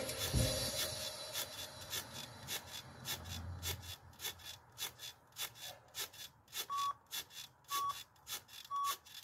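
Rhythmic rubbing clicks, about two a second, then three short beeps a second apart near the end: an interval timer counting down the last seconds of a rest period.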